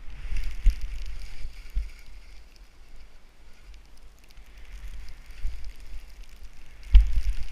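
Skis hissing through deep powder snow, over uneven low rumbling of wind buffeting the microphone of a body-mounted action camera. A sharp thump near the end is the loudest sound.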